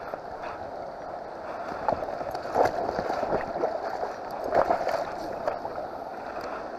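Shallow river water rushing and gurgling over rocks, with a couple of louder swells about two and a half and four and a half seconds in.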